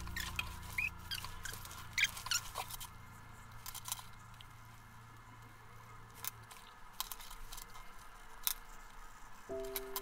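Light clicks and taps of wooden coloured pencils being handled on a wooden table, with a coloured pencil scratching on sketchbook paper.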